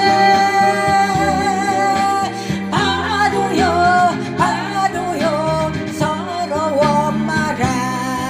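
Music: a vocal line over an accompaniment track with a stepping bass line. A note is held with vibrato for about two seconds, then the melody moves on in shorter phrases.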